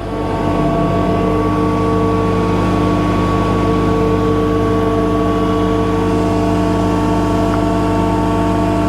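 Takeuchi skid steer's diesel engine running steadily with an unchanging pitch.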